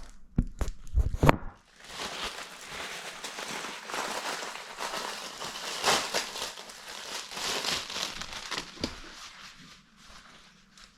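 A few knocks as something is set down, then packaging crinkling and rustling as it is handled and unwrapped, with swells of louder crumpling, fading near the end.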